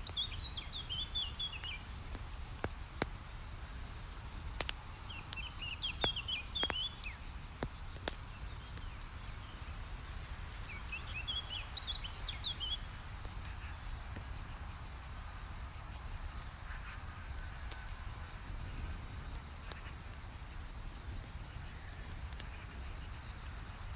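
Campfire crackling, with scattered sharp pops over a low steady rumble. A songbird sings three short phrases of quick high notes, about six seconds apart, in the first half.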